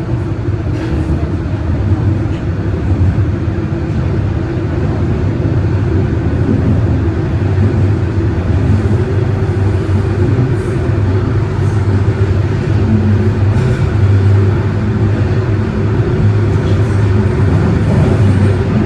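Interior noise of a TTC Line 4 Toronto Rocket subway train running between stations in the tunnel: a steady, loud rumble with a low hum.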